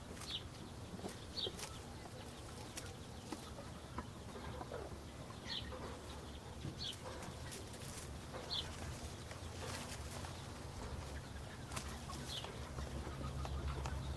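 A small bird chirping in the background: single short high chirps every one to four seconds. Under them there are scattered faint clicks and a low steady rumble.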